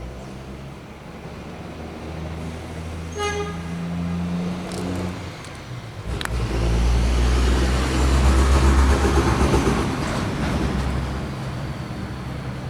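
Road traffic: a motor vehicle's engine running low, then a vehicle passing close by, swelling about six seconds in and fading toward the end. A short beep sounds about three seconds in.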